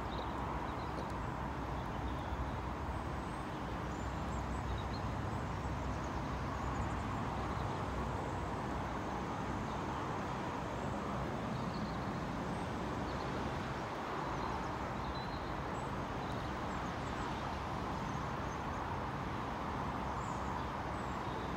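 Steady background hum of distant road traffic, with no single vehicle passing close.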